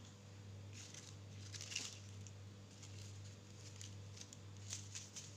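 Quiet stream audio: a steady low hum with a few faint, brief rustles and clicks.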